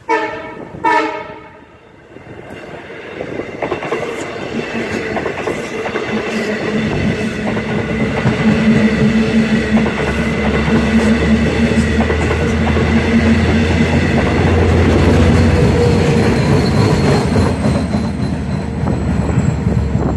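Two short train-horn blasts about a second apart, then a double-deck LIRR push-pull train passes with wheels clattering over the rails. A low diesel engine drone builds as the DE30AC diesel-electric locomotive pushing at the rear draws near.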